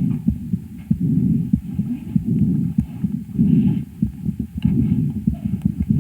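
A calf's chest sounds picked up by a homemade stethoscope microphone on the right side of the chest, where lung ultrasound found a lesion. Low breath sounds come in surges about once a second, with short sharp clicks between them.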